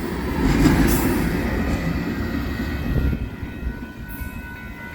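Freight train cars rolling past: a steady low rumble of steel wheels on the rail, easing off over the last couple of seconds.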